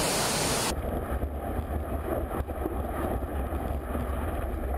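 Wind buffeting an action camera's microphone on a kitesurfing jump above the sea, a low, unsteady rumble. It comes in sharply under a second in, cutting off a short hiss of rushing water from an artificial wave pool.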